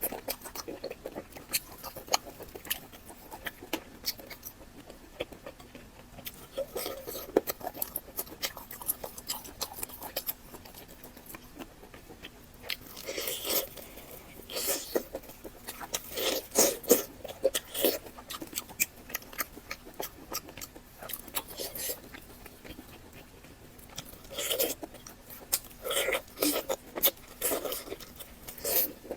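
Close-miked chewing and biting: wet mouth sounds and lip smacks with scattered clicks and some crunchy bites, coming in louder clusters around the middle and near the end.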